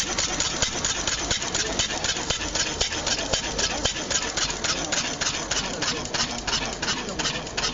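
Benz Patent-Motorwagen's single-cylinder engine running at idle with a fast, even beat of exhaust pulses.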